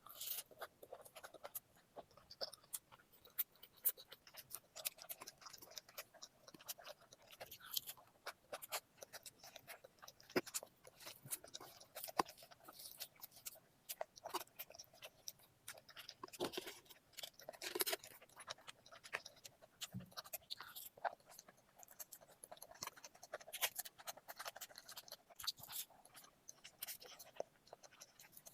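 A person chewing and eating, with a dense run of small wet clicks and smacks of the mouth.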